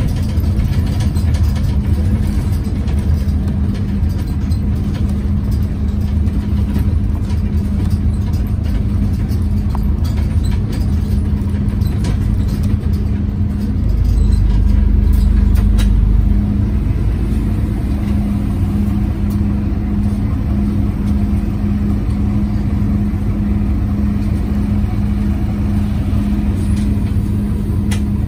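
Scania OmniCity city bus heard from the passenger cabin while driving, its engine cooling fan running loudly as a steady drone that drowns out the engine, over low road rumble. About halfway through, a deeper low rumble swells for a couple of seconds.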